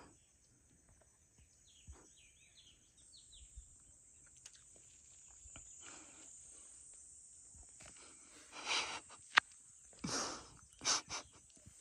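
Quiet hillside ambience: a steady high-pitched insect drone, with a few short bird chirps about two to four seconds in. Near the end come several brief bursts of rustling and a single sharp click.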